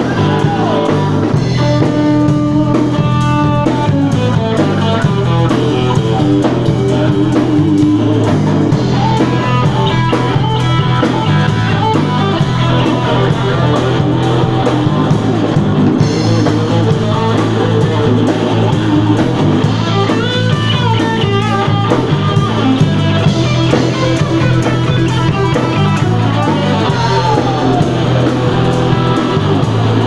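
Live rock band playing loud: electric guitar over a drum kit.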